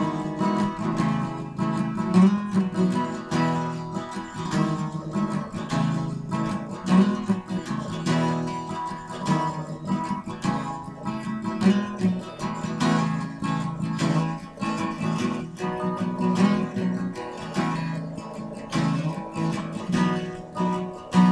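Background music on acoustic guitar, plucked and strummed in a steady run of notes.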